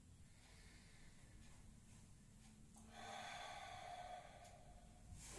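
Faint breathing of a man exercising: a long audible exhale starting about three seconds in and lasting over a second, with a short breath near the end.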